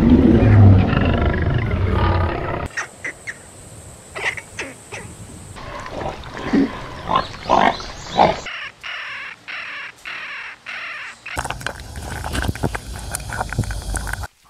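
Short animal clips cut one after another, each with its own sound and each cutting off abruptly: a lion's loud low rumbling at the start, then short scattered calls, then pigs grunting several times around the middle, and a noisier stretch near the end.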